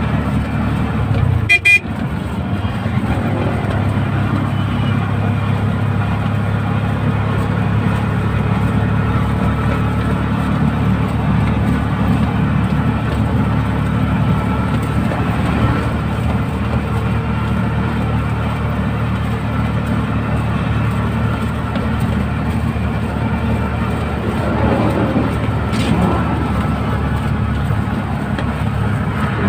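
Engine of a small three-wheeled passenger vehicle running steadily at cruising speed, heard from inside its cab, with road noise. A short horn toot sounds near the start.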